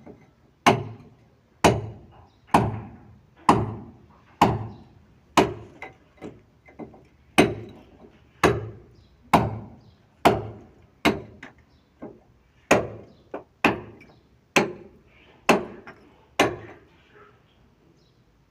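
Hammer blows struck in a steady rhythm, about one a second, each a sharp knock with a short ringing tail, with a few lighter taps in between; they stop a couple of seconds before the end.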